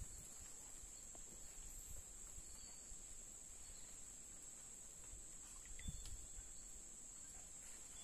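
Steady high-pitched insect drone, with a few faint low knocks, the loudest about six seconds in.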